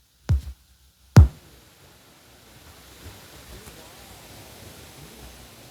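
Two sharp pops, the second one louder, then a faint steady hiss with a faint voice beneath it: white noise from a portable radio's 3.5 mm earphone output at low volume.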